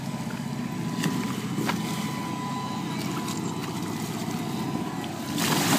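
A small motor drones steadily, with a thin whine above it. There are two light knocks about a second in, and a louder burst of noise near the end.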